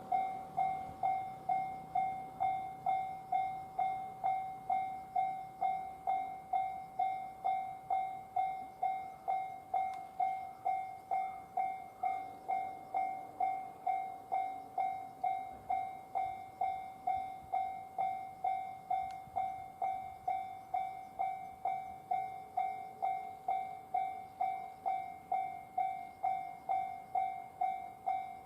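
Japanese railway level crossing warning bell ringing steadily, a clear high ding repeated about one and a half times a second, signalling that a train is approaching and the crossing is closed.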